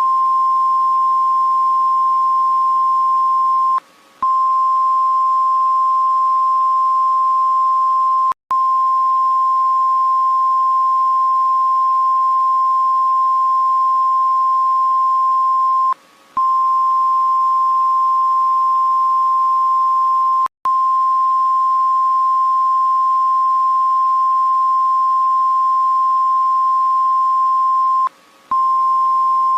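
Emergency alert attention tone: a single steady, loud, high-pitched tone held for many seconds. It breaks off briefly about every twelve seconds, with two even shorter dropouts in between.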